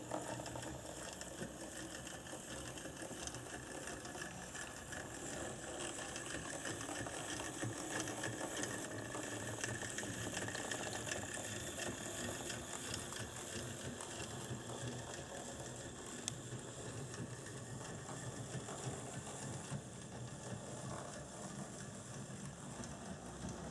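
Brass HO-scale model steam locomotive (a JNR C62 4-6-4) running along the track: a steady whir of its motor and gear drive with fast, continuous clicking of the mechanism and wheels.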